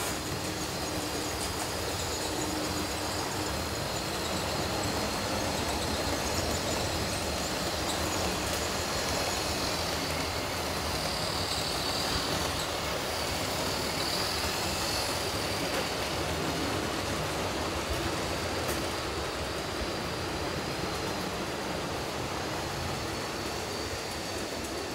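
Model trains running on a large layout: a steady whirring rumble of small electric motors and wheels on the track, with a thin high whine that grows louder about halfway through.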